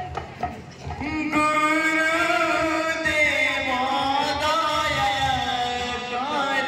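Devotional kirtan music: a few hand-drum strokes, then from about a second in a voice starts a long held sung line with slow bends, the drum continuing underneath.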